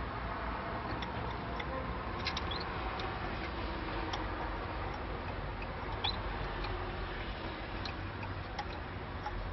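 Irish Fancy canaries giving sparse short chirps and ticks, a dozen or so scattered at irregular intervals over a steady background hiss.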